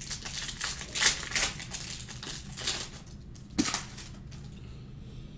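Panini Mosaic basketball cards being handled and flipped through by hand: a quick run of light clicks, slides and rustles as the stiff cards move against each other, with one sharper click about three and a half seconds in, then quieter.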